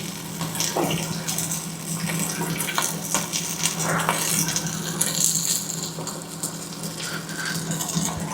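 Beef and potatoes cooking in a pan in the meat's own juices, a steady wet sizzling with a few light clinks of potatoes or a utensil against the pan, over a steady low hum.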